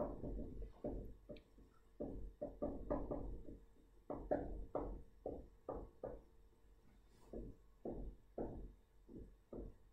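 Irregular light taps and knocks of handwriting, about two a second, with a pen or stylus striking the writing surface.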